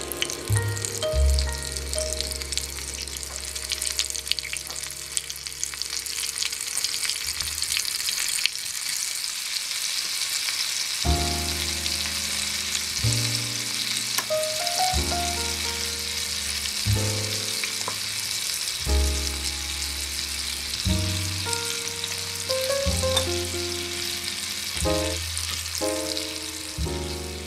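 Battered chicken pieces deep-frying in hot oil in a tiny ceramic pot: a steady, crackling sizzle.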